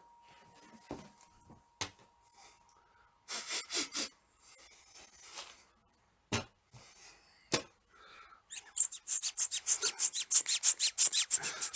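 Improvised live sound effects: a few faint isolated clicks and knocks, then, about three seconds before the end, a quick rhythmic breathy patter of about five strokes a second, set to a dog running.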